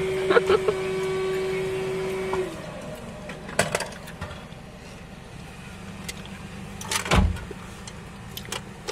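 A steady motor whine that drops in pitch and stops about two and a half seconds in, followed by a low hum, a few clicks and one loud thump about seven seconds in.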